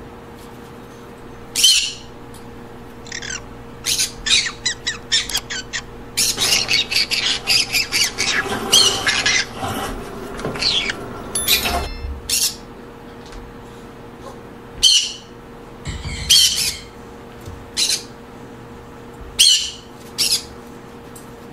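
Green-cheeked conures squawking: short, harsh calls, first a rapid run of them lasting several seconds, then single squawks a second or two apart. A faint steady hum sits underneath.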